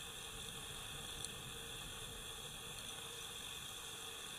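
Faint steady hiss with a thin high-pitched buzz running under it, unchanging throughout; no distinct sound event.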